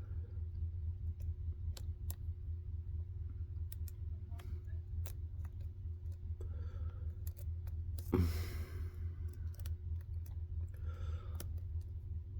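Lock pick and tension wrench working the pin stack of a Ruko 600 lock with barrel spool pins: scattered light metallic clicks as the pins are pushed and set, over a steady low hum. A short rush of noise comes about eight seconds in.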